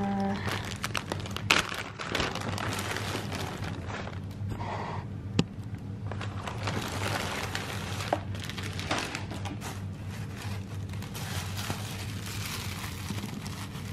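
Clear plastic bag crinkling and crackling as a wig is handled and pulled out of it, with irregular sharp crackles throughout.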